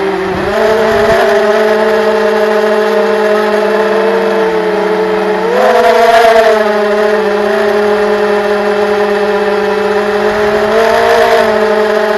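FPV drone's electric motors and propellers whining steadily, the pitch shifting with the throttle. It dips about four seconds in, climbs again just before the middle, and rises briefly near the end.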